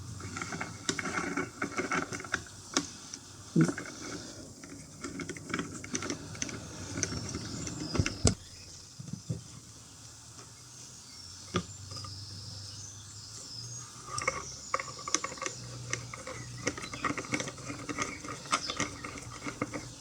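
Hand rivet nut gun being handled and worked: scattered metal clicks and small knocks, irregular, with a few sharper clacks and a quieter stretch about halfway through.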